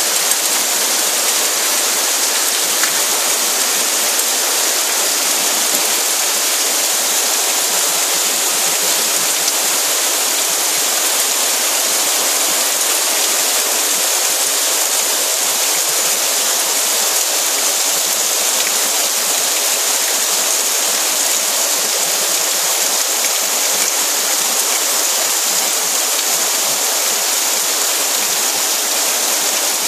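Torrential rain pouring onto flooded pavement, a dense, steady hiss.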